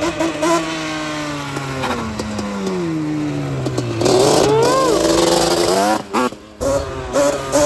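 Yamaha Banshee 350's twin-cylinder two-stroke engine idling with a pulsing, uneven burble, its pitch sagging over a few seconds. It is then revved up sharply about four seconds in and falls back. The sound briefly drops away near the end before the idle resumes.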